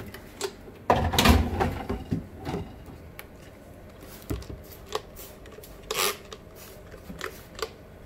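Plastic refrigerator drawers and shelves being handled: a clatter about a second in, then scattered clicks and a few short squirts from a trigger spray bottle of cleaner.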